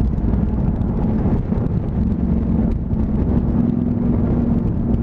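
Honda CTX700's parallel-twin engine running at a steady cruise as the motorcycle is ridden, with wind and road rumble on the microphone. The engine note grows a little stronger about three and a half seconds in.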